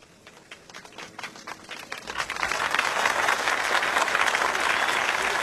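Audience applause: a few scattered claps at first, building to full, steady clapping about two seconds in.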